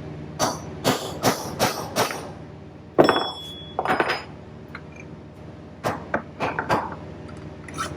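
Hammer driving a steel punch against a bearing race inside the wheel hub of a John Deere 24T square baler, to knock the race out. About a dozen sharp metallic blows come in uneven runs; one about three seconds in is the loudest and rings briefly.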